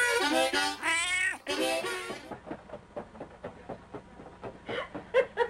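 A cat meowing: a few loud, drawn-out meows that bend up and down in pitch over the first two seconds. Then, about two seconds in, the sound cuts to a much quieter track of scattered faint clicks and a few short, soft sounds.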